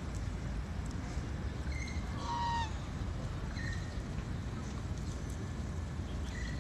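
Waterfowl calling: one louder honking call about two seconds in and a few short, high peeps later, over a steady low rumble.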